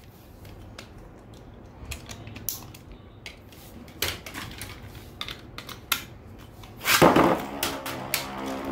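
Light plastic clicks and clatter of Infinity Nado spinning tops and their launchers being handled. About seven seconds in, the tops are launched into the arena, where they spin with a steady whirring hum and clack against each other.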